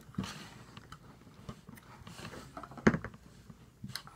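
Hands pressing and kneading kinetic sand in a tray, soft scrunching and rustling swishes with small clicks, and one sharper knock about three seconds in.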